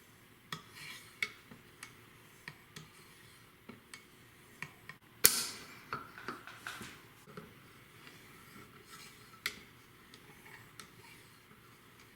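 Scattered light clicks, short scrapes and metallic clinks from a knife and a guided knife sharpener being worked and handled, with one louder clack about five seconds in.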